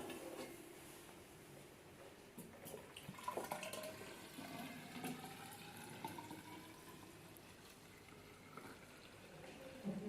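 Cold water being poured into a container, a faint running-liquid sound whose pitch rises slowly as the vessel fills.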